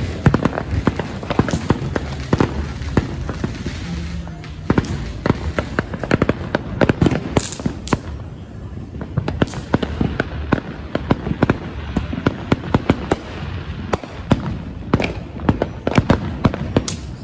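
Fireworks going off: a dense, irregular run of sharp bangs and crackling pops, several a second.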